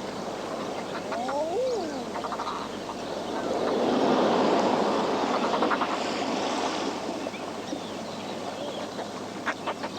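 Waves surging and washing over a rocky shore in slow swells, with seabirds calling: a few curving calls about a second in, and quick chattering calls around two and six seconds in.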